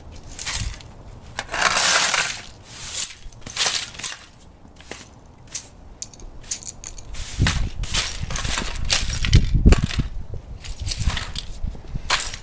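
Irregular crunching and scraping noises, a short burst every half second or so, with heavier low thuds and rumbling near the middle.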